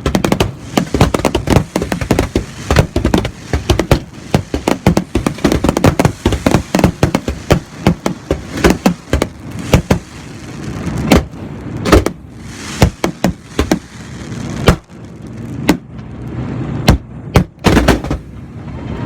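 Fireworks going off in a dense, rapid run of bangs and crackles, several a second. In the second half the bangs come fewer and further apart, with a few single loud reports.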